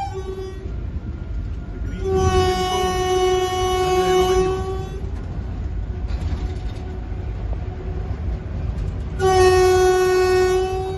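Train air horn sounding two long blasts, the first about three seconds long and the second about two, heard from inside a moving locomotive cab over the steady low rumble of the running train.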